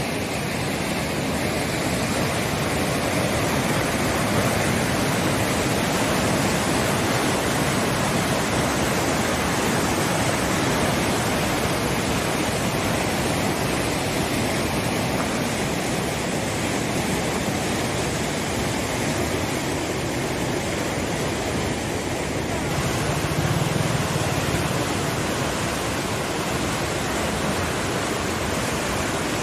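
Fast-flowing floodwater rushing steadily, a dense even noise of churning water.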